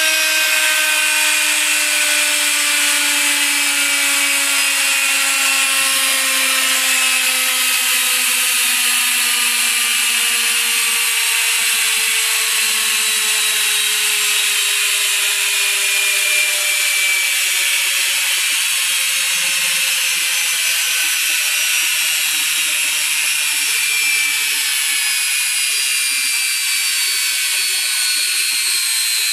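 Arçelik washing machine's brushed universal motor spinning down after being switched off: its whine falls steadily in pitch, with a steady hiss above it. The motor has new carbon brushes and a sanded commutator.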